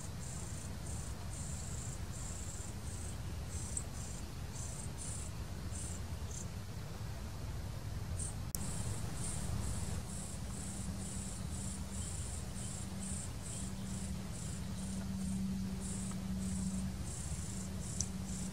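An insect chirping in a steady high-pitched pulse, about two chirps a second, pausing briefly about a third of the way in. A low rumble and a steady low hum run underneath.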